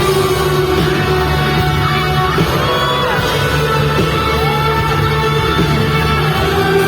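Loud, steady music with a singing voice that glides up and down in pitch over held notes.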